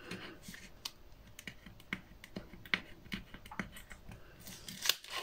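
Light, irregular clicks and taps of paper and card being handled and pressed on a work table, a few per second, with a sharper tap near the end.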